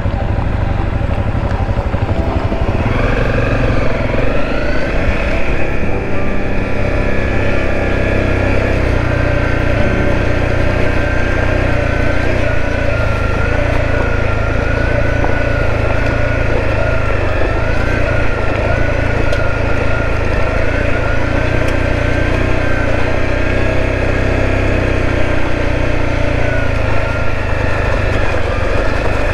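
Motorcycle engine running under way. Its pitch rises about three seconds in as it accelerates, then holds fairly steady.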